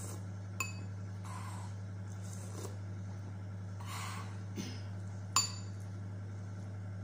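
Metal spoon clinking twice against a ceramic dish, about half a second in and again near the end, the second clink louder, with soft eating noises between them. A steady low hum runs underneath.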